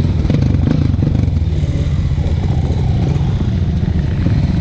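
Off-road motorcycle engine running steadily at low revs, heard close up from the rider's helmet camera.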